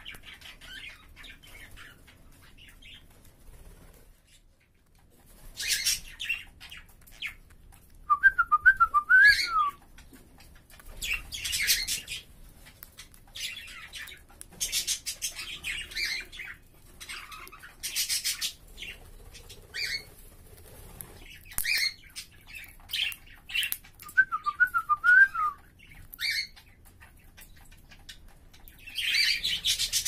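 Caged cockatiels and budgerigars calling, with scattered harsh chattering squawks. A short warbling whistled phrase comes about eight seconds in and again about twenty-four seconds in.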